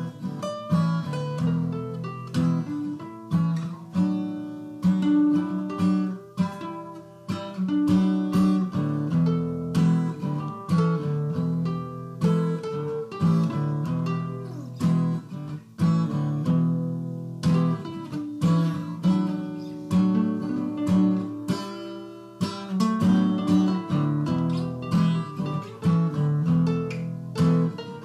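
Background music on acoustic guitar: plucked notes and strummed chords, with a couple of guitar parts layered together.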